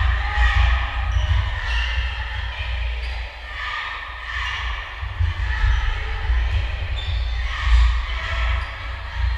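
Basketball game in a gym: a basketball bouncing on the court floor amid crowd and player chatter.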